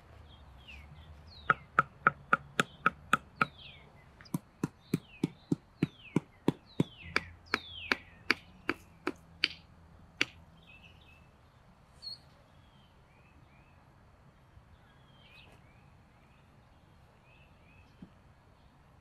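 A wooden stick knocking wooden stakes into the ground: a quick run of about eight sharp strikes, about four a second, then after a short pause about fifteen slower strikes that stop about halfway through. Birds chirp faintly in the background.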